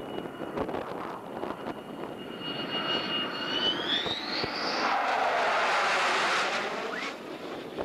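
F-15E Strike Eagle's twin jet engines as it passes low overhead on approach: a high whine held steady, rising in pitch about four seconds in, then a loud roar peaking around five to six and a half seconds in as the jet goes by. Wind buffets the microphone in the first couple of seconds.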